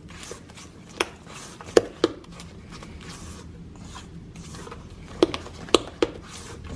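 A silicone spatula stirs thick cookie dough in a stainless steel mixing bowl. It knocks sharply against the bowl six times, with a short metallic ring each time, in two groups of three: about a second in and about five seconds in.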